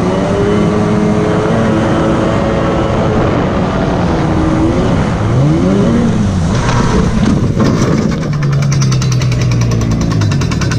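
Jet jon boat's jet ski engine running loud, its pitch rising and falling about halfway through as the throttle is worked, then settling lower with a fast, even rattle coming in near the end.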